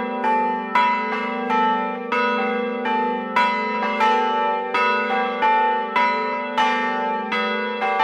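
Large church bells ringing in turn, a stroke about every two-thirds of a second at several different pitches, each note ringing on under the next.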